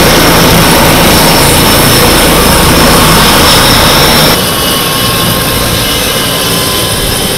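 Turbine helicopter running on the ground just after landing, rotors still turning: a loud, steady rush of rotor and engine noise with a faint turbine whine. The level drops a step about four seconds in.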